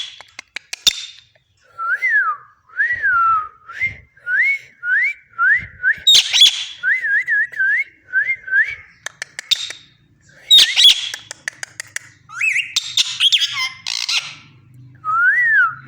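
Pet parrot whistling a long string of short rising-and-falling notes, broken by several loud, harsh squawks.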